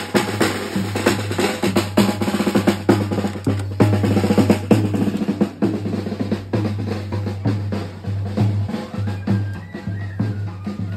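Marching snare drum played with sticks in fast rolls and strokes. The strokes come thick and loud at first and thin out after about five seconds.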